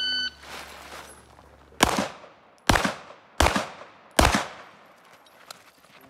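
An electronic shot timer's short start beep, then four pistol shots from a Smith & Wesson M&P 2.0 competition pistol. The first shot comes about a second and a half after the beep, and the rest follow a little under a second apart.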